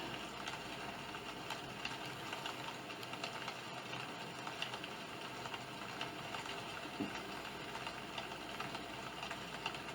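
Sound Oasis ambient sound machine playing a steady noise track, an even hiss with many small scattered clicks and crackles.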